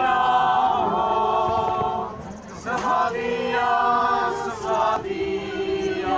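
A group of people singing together unaccompanied, in slow phrases of long held notes, with a brief pause between phrases about two seconds in and again about five seconds in.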